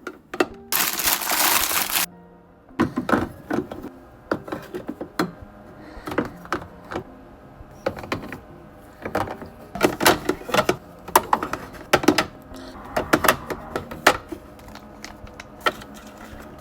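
Small skincare bottles, jars and the mini fridge being handled, giving a run of sharp clicks and knocks, over background music. A loud hiss lasts about a second near the start.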